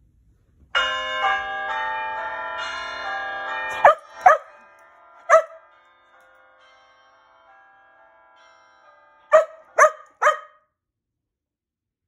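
A bell-tower chime sound effect plays from a tablet speaker for about three seconds, ringing on faintly afterwards. A dog barks three sharp times just as the chimes drop away, then three more times about five seconds later.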